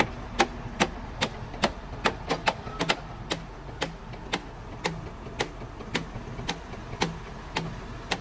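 Sharp knocks or taps, about two a second and slightly uneven, over a steady low hum.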